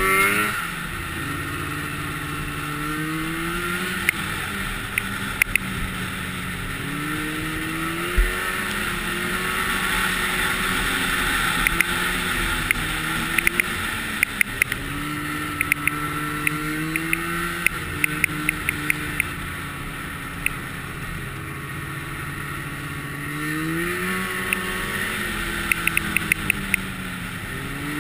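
Snowmobile engine running along a trail, its pitch rising and falling repeatedly with the throttle and climbing steeply near the start and again about 23 seconds in, over a steady rushing noise. Scattered sharp clicks come through, in clusters in the middle and near the end.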